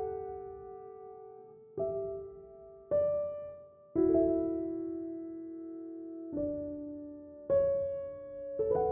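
Slow piano music: soft chords struck about once a second or two, each left to ring and fade.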